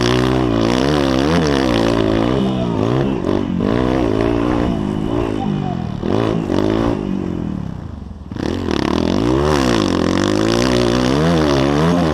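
Motocross bike's engine heard up close from its onboard camera, revving hard and repeatedly rising and falling in pitch with the throttle. About two-thirds of the way through the throttle closes briefly and the engine drops away before revving back up.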